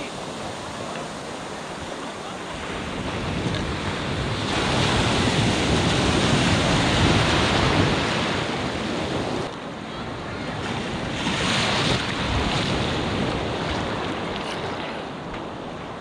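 Sea surf washing in over shallow sand, the rush swelling and falling with the waves, loudest through the middle with a second swell a little later.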